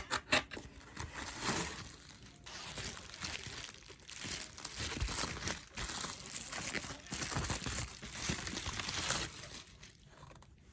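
Crinkling and rustling of wrapping being handled, with a couple of sharp clicks at the start.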